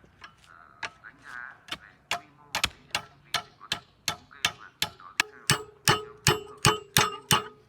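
Repeated sharp metal-on-metal blows, about three a second and growing louder, as a knife is used to knock the bent tines of a metal garden rake back into line after they struck rocks. From about five seconds in, each blow leaves a short ringing tone.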